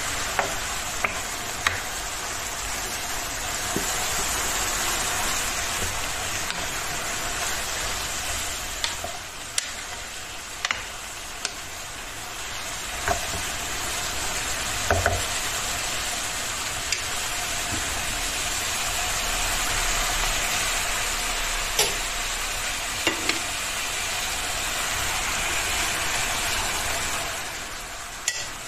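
Diced eggplant, onion and green peppers sizzling in oil in a nonstick frying pan, stirred with a wooden spoon that scrapes and now and then clicks against the pan. Near the end the sizzle falls off as chopped tomato goes into the pan.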